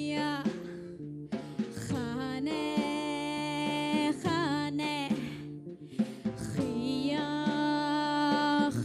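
A woman singing long held notes linked by winding, ornamented pitch turns, over a live band with drums.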